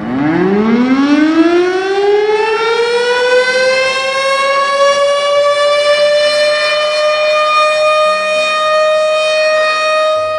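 Factory siren winding up: its pitch rises steeply from low, then levels off into a loud, steady wail that cuts off suddenly at the end.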